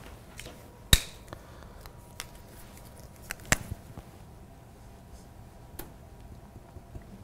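A few sharp plastic clicks from whiteboard marker caps being snapped off and on as a blue marker is swapped for a red one: the loudest about a second in, two more close together about three and a half seconds in, and a lighter one near six seconds.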